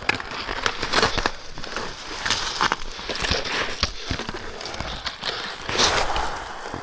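Heavy, labored breathing of a hiker climbing a steep slope, over a steady run of crunching footsteps and crackling, snapping brush as branches are pushed aside.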